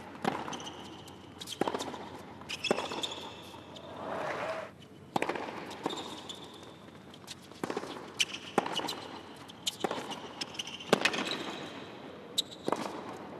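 Tennis rally on a hard court: the ball cracking off the rackets and bouncing in a regular back-and-forth, about one hit every second, with shoes squeaking on the court between shots.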